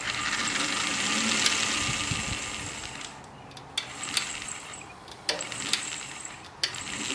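Series-wound DC motor spinning up unloaded on 12 volts from a battery charger: a high whine with brush hiss, strongest for the first two to three seconds and then fading away. A few sharp clicks follow.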